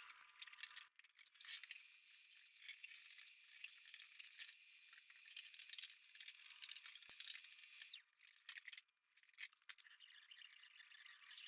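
A rotary power tool working rust off the van's sheet metal. It spins up with a high-pitched whine about a second and a half in, runs steadily for about six seconds, then cuts off.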